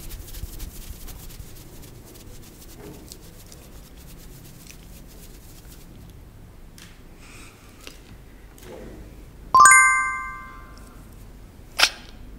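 A bright chime strikes suddenly about ten seconds in, several clear ringing tones that fade over about a second, then a short bright ting near the end, timed with a sparkle graphic on the smile: added sound effects. Before them only faint rustles and small clicks.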